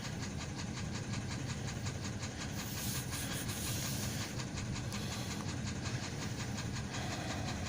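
Kia Cerato 2-litre engine idling with a rapid, even knock, about eight or nine a second, over its steady hum: the engine knock that the owner is demonstrating.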